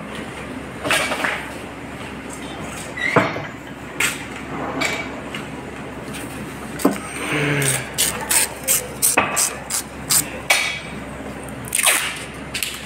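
Steel reel shafts and stands knocking and clanking as heavy paper reels are mounted. About two-thirds of the way through comes a quick run of sharp metallic taps, about three a second.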